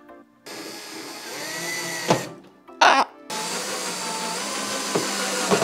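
Cordless drill driving screws to mount a backup camera bracket on a car's trunk lid. It runs for about two seconds, stops, gives one short burst, then runs steadily for about two seconds more.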